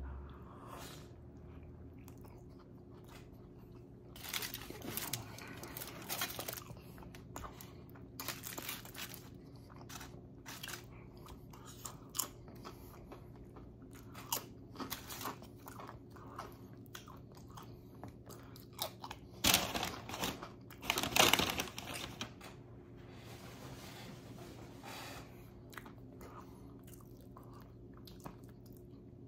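A person chewing and crunching tortilla chips close to the microphone, in irregular crunchy bites with quieter wet chewing between them; the crunching is loudest about two-thirds of the way through. A faint steady hum lies underneath.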